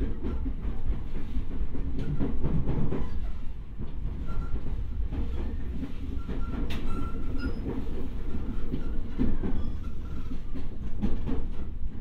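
Running sound inside a JR East E501 series electric train's motor car: a steady rumble of wheels on the rails, with sharp clicks as the wheels pass over rail joints.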